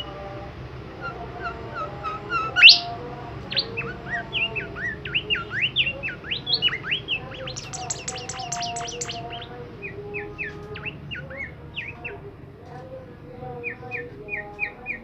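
Songbird singing busily in a long run of short, quick rising chirps. It gives one loud sharp note early, then a fast high trill about eight seconds in, before softer chirps.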